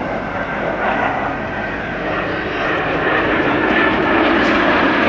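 Four Fouga Magister jet trainers flying past in formation, their twin Turbomeca Marboré turbojets making a rushing jet noise with a faint high whine, growing steadily louder as they approach.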